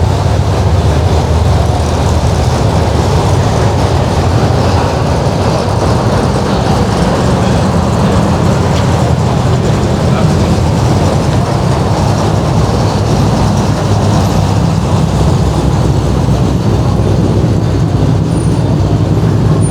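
Steady, loud low rumble of a vehicle on the move, engine and road noise with no break or change in pitch.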